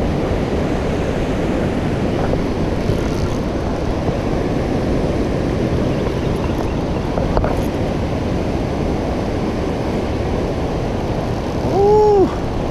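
Steady low rumble of wind buffeting the microphone. Near the end a short tone rises and falls in pitch.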